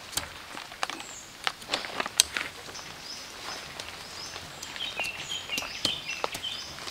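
Tent fabric rustling and crinkling as hands pull it over the poles, with sharp clicks and taps from the poles. Short repeated bird chirps sound in the background, more of them in the second half.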